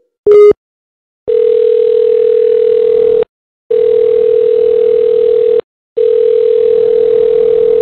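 Telephone line tones: a short, loud beep near the start, then a steady tone sounding three times, about two seconds each with short gaps between.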